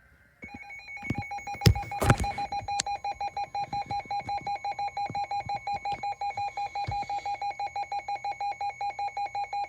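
Midland WR-300 weather radio sounding its alert alarm, a rapid steady beeping of one pitched tone, several beeps a second, which signals that a warning (here a flash flood warning) has been received. A couple of sharp knocks sound between about one and two seconds in.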